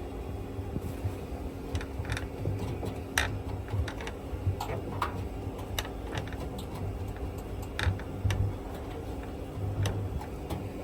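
Indesit WIL143 washing machine running with a steady low hum, overlaid by irregular sharp clicks and ticks.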